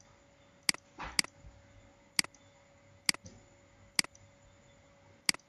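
Computer mouse clicking, six single clicks spaced irregularly about a second apart.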